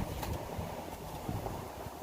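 Wind buffeting the microphone, a rough low rumble, with a few faint clicks.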